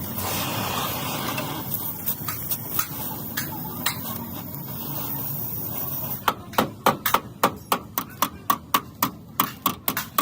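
Hammer beating sheet metal in panel-beating work. About six seconds in, quick even strokes begin at about four a second. Before that there is a steady workshop hiss with a few scattered taps.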